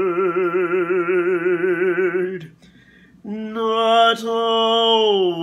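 A man's voice singing a spiritual unaccompanied, holding a long note with wide vibrato. It breaks off for a breath a little past halfway, then takes up a slightly higher held note that slides down near the end. A short sharp click sounds about four seconds in.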